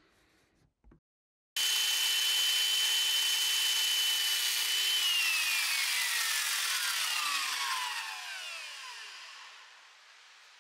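Handheld corded electric saw switched on: its motor whine starts suddenly and holds one steady pitch for about three and a half seconds. Then it is let go, and the pitch falls and fades over several seconds as the motor winds down.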